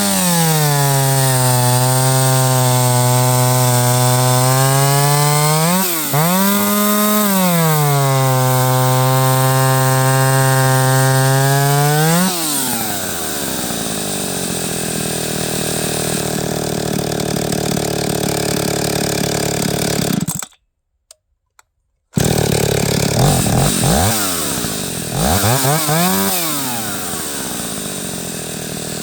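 Stihl 031 AV two-stroke chainsaw held at full throttle for about twelve seconds with two brief dips in revs, then dropping back to idle. After a short break in the sound it is blipped up twice and settles again. The carburetor is freshly tuned for cold weather around 20°F.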